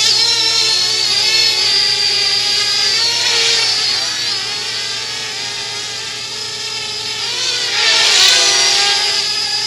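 Parrot Bebop 2 quadcopter drone in flight: the whine of its four electric motors and propellers, the pitch wavering up and down as it manoeuvres, swelling loudest near the end.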